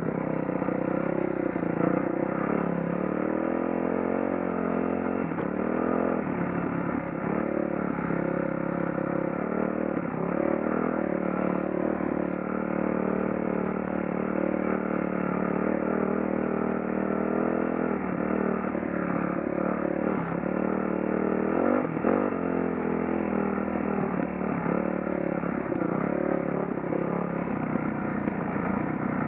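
Dirt bike engine running under way on a dirt trail, its revs rising and falling again and again, with a rattling clatter from the bike over the rough ground.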